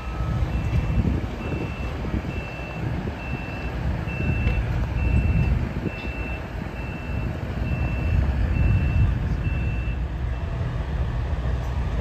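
Reversing alarm of a piece of construction machinery beeping steadily at one high pitch, stopping about ten seconds in, over a low engine rumble.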